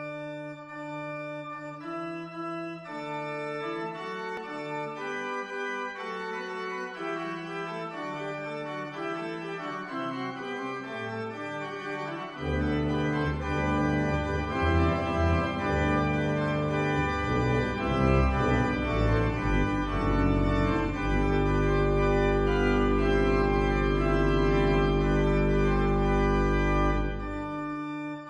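Organ music: slow sustained chords, with deep bass notes coming in about twelve seconds in and the playing growing louder, then a long held chord that drops back to softer playing near the end.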